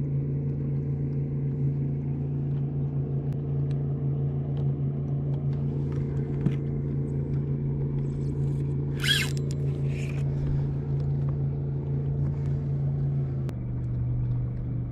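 Minn Kota electric trolling motor running with a steady hum, its pitch dropping slightly near the end as its speed is changed. Two brief rustles about two-thirds of the way through.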